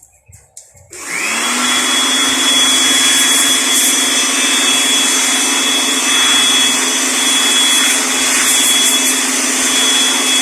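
An electric vacuum cleaner switches on about a second in and runs steadily, with a high whine over the rush of air, most likely cleaning brake dust off the brake parts.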